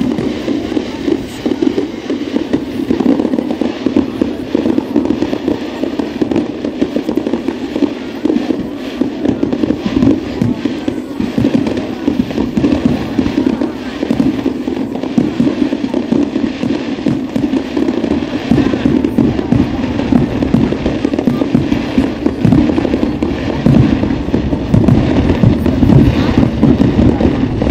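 Aerial fireworks display: a dense, continuous barrage of shell bursts and crackling, with no pauses between bangs.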